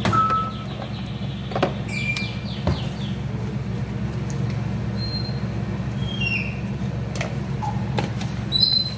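A steady low machine hum with scattered light clinks and taps as food and utensils are handled at the stove.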